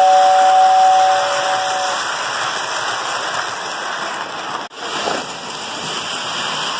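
Lionel O-gauge model train whistle blowing a steady two-note chord for about two seconds over the continuous rushing rumble of model trains running on the track. The whistle stops and the running noise carries on, with a brief break about four and a half seconds in.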